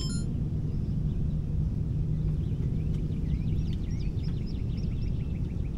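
A bird twittering in a quick run of short chirps, starting about halfway in, over a steady low hum.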